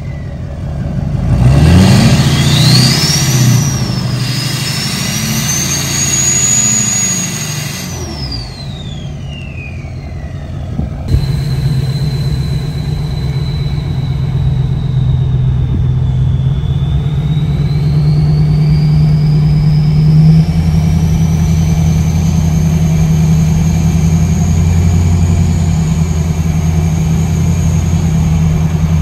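LLY Duramax 6.6 L V8 turbodiesel with a 64 mm turbo, accelerating away in a drive-by. The turbo whistle rises in pitch, holds high, then falls away over the engine noise. After a sudden cut it is heard from the cab while driving: a steady engine drone with the turbo whistle dipping and then climbing again.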